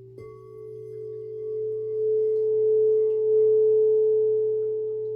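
Singing bowl struck once near the start. Its steady, ringing tone then swells louder over a couple of seconds and holds.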